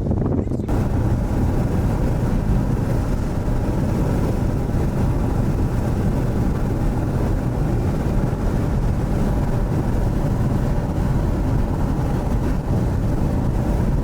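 Steady rumble of a moving vehicle: road and wind noise heard from inside a car.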